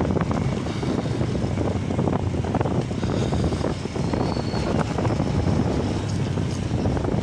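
Wind buffeting the microphone of a moving motorcycle, with the bike's engine and road noise running steadily underneath.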